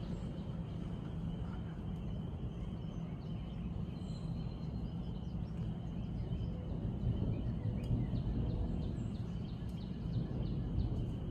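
Steady low rumble of wind against the microphone, with faint bird chirps scattered over it.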